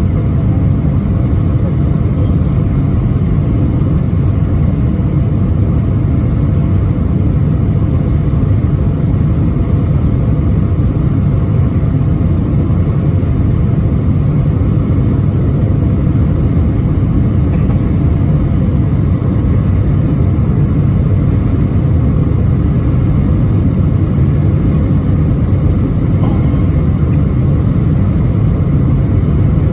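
Steady low rumble of cabin noise inside an Airbus A320 airliner, unchanging throughout, with a couple of faint steady hums above it.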